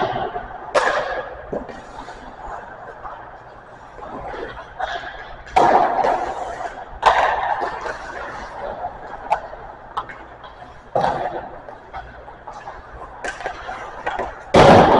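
Hockey pucks being shot and struck with sticks on an ice rink: about five sharp cracks spread through, each ringing out briefly, the loudest near the end.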